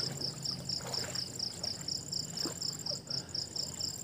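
Crickets chirping in a steady, even rhythm of about four chirps a second, with a fainter unbroken high trill from other insects behind it.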